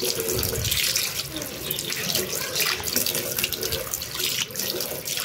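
Water running steadily from a tap into a ceramic washbasin, splashing over hands being rinsed and rubbed under the stream.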